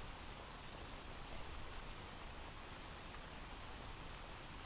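Faint, steady rain ambience: a looped rain sound effect playing as background.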